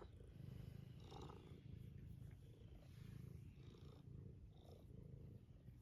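A pet cat purring softly, a faint, steady, pulsing low rumble.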